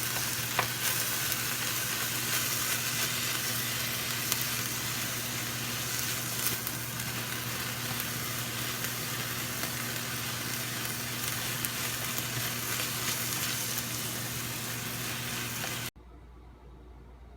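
Food sizzling as it fries in a pan, with a few light clicks of a utensil and a steady low hum underneath; the sizzle cuts off suddenly near the end.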